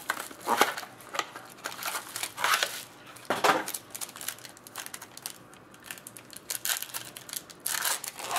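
Trading cards and their cardboard and wrapper packaging being handled: irregular rustling, scraping and light clicks, with a few louder rustles.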